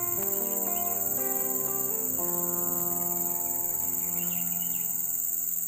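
Steady high-pitched insect chorus of crickets, with background music of slow, held notes changing every second or so.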